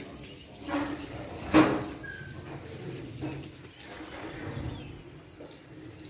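Water running from outdoor ablution taps, with a brief sharp sound about one and a half seconds in.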